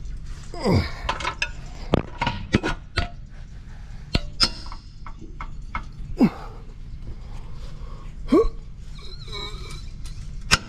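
Hand tools clinking and knocking on metal while exhaust downpipe bolts are worked loose under a car: scattered sharp knocks and clicks, with a few short squeals that slide in pitch, over a low steady hum.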